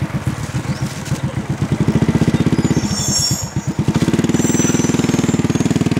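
A small engine running with a rapid, even pulsing beat. It dips briefly a little before four seconds in, then picks up again louder.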